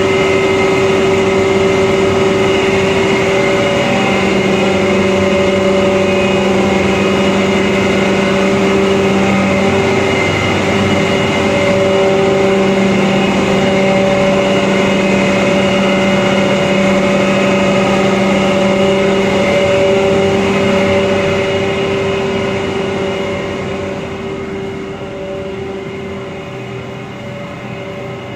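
Rice husk grinding plant machinery running: a loud, steady machine hum with several held tones over a rushing noise. It grows quieter about three quarters of the way through.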